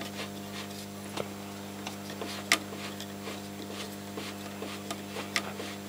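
AWA Radiola 467MA valve radio's speaker giving a steady low hum with scattered crackles and clicks while its tuning shaft is turned between stations, two sharper cracks about two and a half and five and a half seconds in. The freshly contact-cleaned controls are still noisy and should quieten as the lubricant works in.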